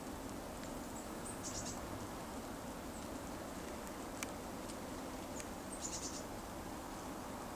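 Steady outdoor hiss with faint, high-pitched chirps in two short bursts, one about a second and a half in and one near the end, and a single faint tick in between.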